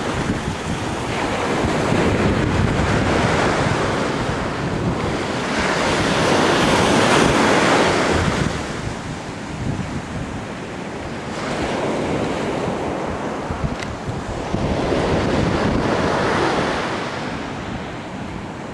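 Ocean surf breaking and washing up the beach, swelling and fading every few seconds, with wind buffeting the microphone as a low rumble.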